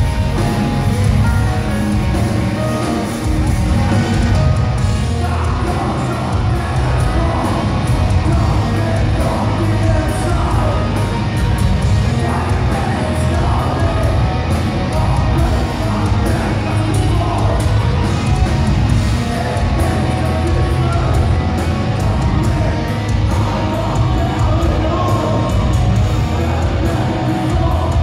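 Post-black metal band playing live at full volume: distorted electric guitars, bass and drums, with harsh screamed vocals coming in a few seconds in.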